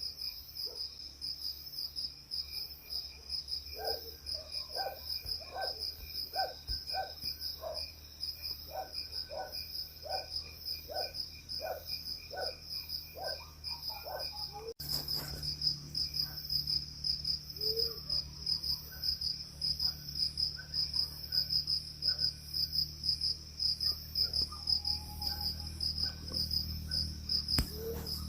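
Night insects chirping steadily in a fast, even pulse. From about four seconds in there is a run of short, lower calls, about two a second, that stop about ten seconds later.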